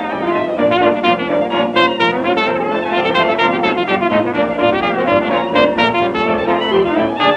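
1920s hot jazz band playing from a 78 rpm record, with brass and reeds in full ensemble over a steady rhythm. The sound is narrow-band, as on an acoustic-era transfer.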